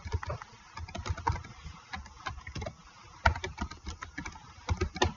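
Computer keyboard being typed on: a quick, irregular run of soft key clicks.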